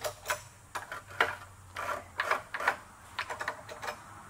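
An irregular run of short metallic clicks and clinks from a hand working tools and parts on a steel milling vise mounted on a rotary table.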